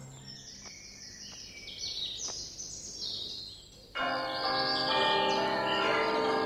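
Faint birds chirping. About four seconds in, a peal of church bells starts suddenly and rings on, with the birds still chirping above it.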